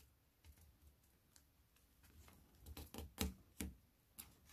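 Faint rustling and soft clicks of coloured origami paper being handled and creased into a step fold, with a short cluster of crisper clicks about three seconds in.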